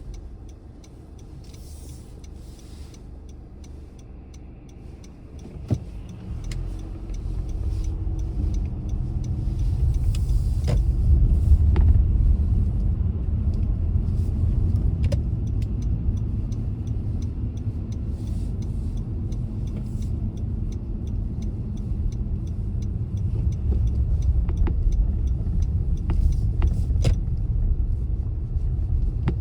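Car driving, a steady low road and engine rumble that is quieter for the first few seconds, then builds as the car picks up speed about six seconds in. A few scattered sharp clicks sound over it.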